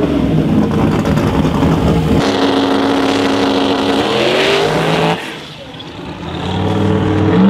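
Turbocharged 427-cubic-inch LS-based small-block V8 of a drag-racing pickup running loud at the starting line, its pitch climbing about four seconds in. The sound then drops away sharply, and engine noise builds again near the end.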